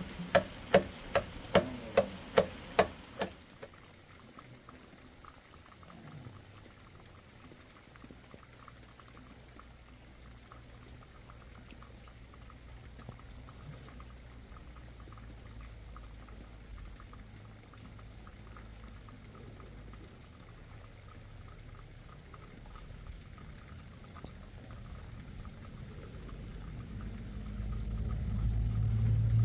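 A wooden pestle pounding in a metal cup, about two to three strikes a second, stopping about three seconds in. A faint low hum follows and grows louder near the end.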